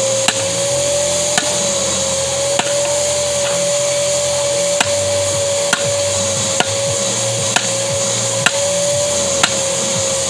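Hammer striking metal about once a second, nine blows in all, over the steady whine of a running vacuum cleaner.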